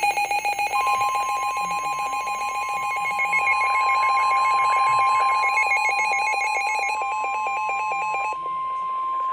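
Emergency alert tones on a weather radio broadcast. A steady single-pitch warning alarm tone, of the kind NOAA Weather Radio sends before a warning message, starts just under a second in and holds. Under it a fast warbling electronic alarm sounds and stops about a second before the end.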